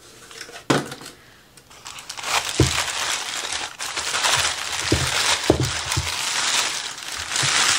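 Tissue paper rustling and crinkling as a wrapped package is opened by hand. There is one sharp click under a second in, then steady crinkling from about two seconds in, with a few soft knocks.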